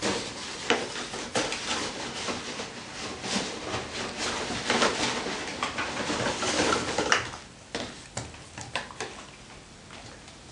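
Empty cardboard rolls rattling and rustling against each other and the sides of a plastic crate as a dog noses through them, searching for hidden treats. Dense clatter for about seven seconds, then only a few scattered knocks.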